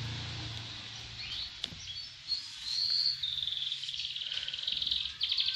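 Small birds chirping in the background: high, short chirps, then a fast trill of about ten pulses a second near the end.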